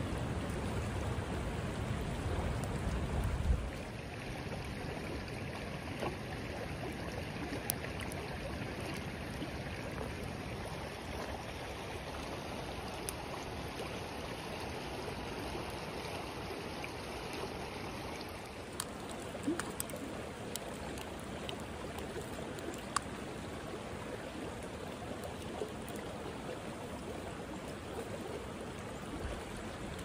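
Shallow creek running over rocks: a steady rush of flowing water. A low rumble under it for the first few seconds stops abruptly, and a few faint ticks sound now and then.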